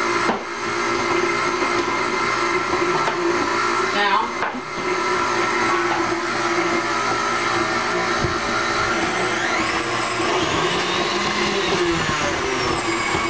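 Electric stand mixer running steadily with its bowl in place, a continuous motor whine.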